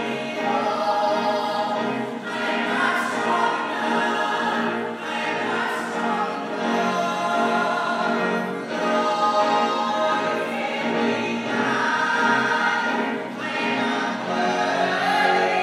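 Small mixed vocal ensemble of five singing a musical-theatre song in harmony, voices sustained and blended, heard from the audience seats.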